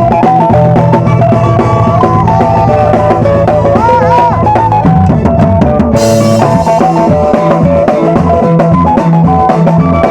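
Loud music with a steady drum-kit beat under shifting melodic lines, heard at a band sound check, with a burst of bright high noise about six seconds in.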